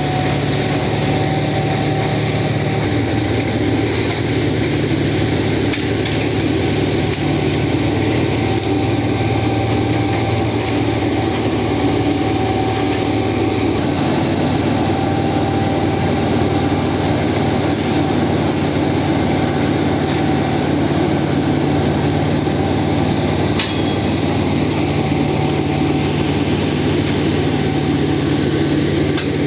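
Railway track-laying machine running steadily at work, its diesel engine droning under a constant whine, with a few sharp clicks.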